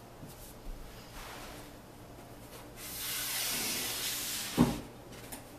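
A large sheet of chart paper rustling for about two seconds as it is flipped over on a whiteboard, starting about three seconds in, with a single sharp knock near the end.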